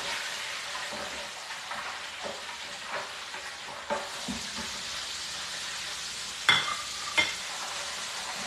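Chicken deep-frying in hot oil in an electric deep fryer: a steady sizzle with scattered grease pops. About six and a half and seven seconds in, two sharp metallic clinks ring out.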